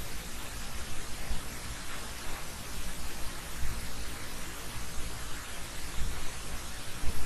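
Steady hiss of an open microphone, with uneven low rumbling underneath.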